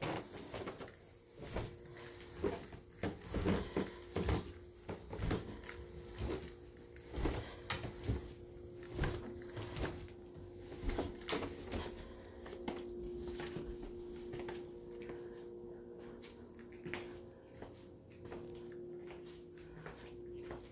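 Footsteps going down a staircase and across a tiled floor, a series of irregular soft thuds and knocks, over a steady hum that grows more prominent about halfway through.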